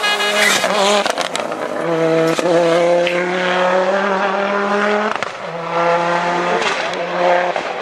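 Audi Quattro rally car's turbocharged inline-five engine pulling hard at high revs in long, steady held notes, breaking off briefly twice, with a few sharp cracks from the exhaust.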